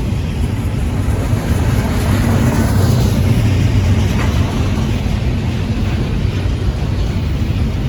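Norfolk Southern intermodal freight train rolling past at a crawl, a steady low rumble.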